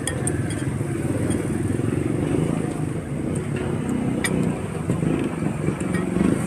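Street traffic with a motorcycle engine running steadily close by, and a few light clicks over it.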